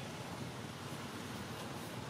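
Steady outdoor background hiss with no distinct sound standing out.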